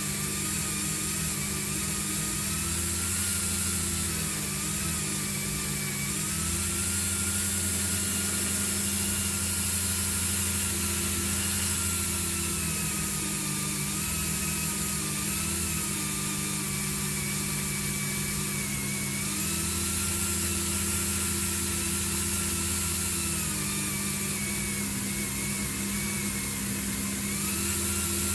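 Dremel 3000 rotary tool running with a polishing wheel on a small metal part: a steady high whine that sags in pitch and recovers several times as the wheel bears on the work, over a constant motor hum.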